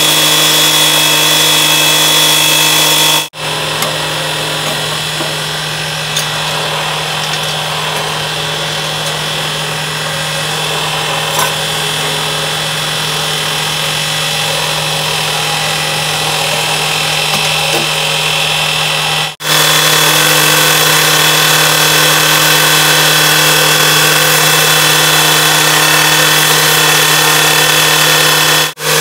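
Husqvarna K1270 two-stroke rail cutter running steadily at high speed, its abrasive disc grinding through a steel rail. The steady tone gives way to a quieter, rougher noise from about 3 seconds to about 19 seconds in, then returns.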